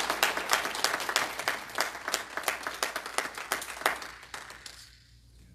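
Congregation applauding with hand claps, the claps thinning out and dying away about four to five seconds in.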